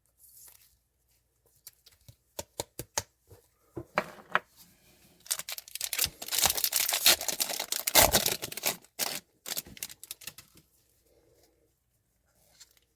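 Trading cards being handled with plastic sleeves and a top loader: a run of light clicks and taps, then several seconds of rustling and crinkling, with a knock about eight seconds in.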